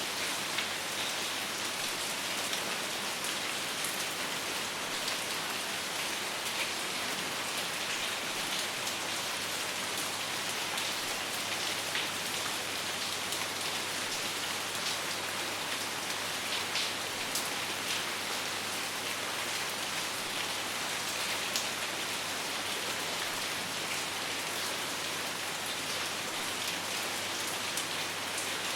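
Steady rain: an even hiss of heavy rainfall with many single drops pattering through it.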